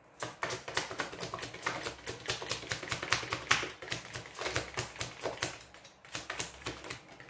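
A tarot deck being shuffled by hand: a rapid run of crisp card flicks and slaps, several a second, thinning out near the end.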